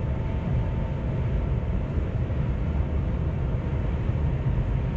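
Cabin noise inside the Shanghai maglev train accelerating through about 280 km/h: a steady low rumble with faint steady tones above it.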